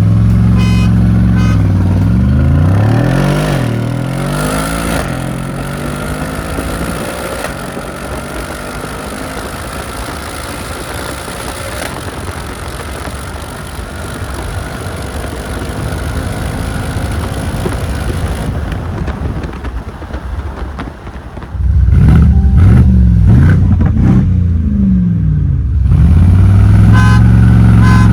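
Twin-turbo V8 of a tuned Mercedes-AMG G 63 revving and accelerating hard, with its pitch swinging up and down near the start and again for the last several seconds. In between it runs quieter and steadier.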